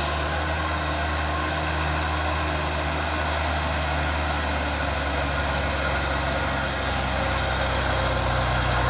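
Heavy diesel truck engine running steadily with a deep low drone, its note shifting slightly about seven seconds in.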